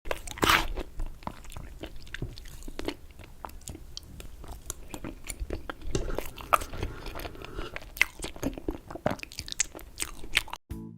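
Close-miked eating sounds of raspberry cheesecake: bites and chewing, with irregular wet clicks and smacks. Music starts just before the end.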